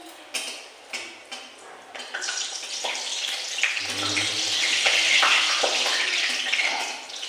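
Batter-coated eggplant slices (beguni) deep-frying in hot oil in a metal kadai, the sizzle growing louder from about two seconds in. A flat metal spatula clicks and scrapes against the pan a few times as the slices are turned.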